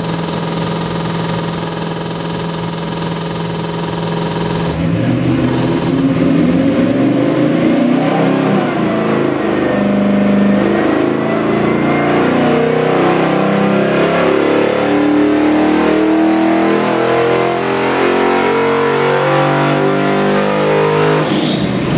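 Chevy LS 441 cubic inch fuel-injected V8 on an engine dyno, idling steadily for about five seconds, then pulling under the dyno's load in a steady rising sweep to about 6,000 rpm and over 700 hp. Near the end the throttle closes and the revs drop away.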